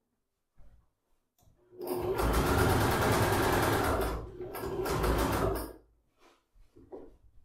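Domestic electric sewing machine topstitching fabric. Its needle runs fast from about two seconds in, slows briefly near the middle, then runs again and stops a couple of seconds before the end. Faint handling sounds come before and after the stitching.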